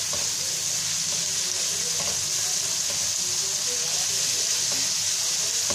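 Chopped onion and garlic sizzling steadily in hot olive oil in a non-stick frying pan.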